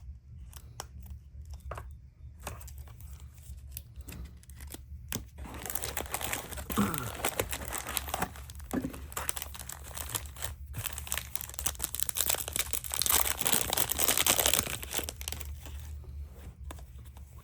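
Plastic cello wrapper of a trading card pack being torn open and crinkled, after a few seconds of light clicks and card handling; the crinkling is densest and loudest near the end.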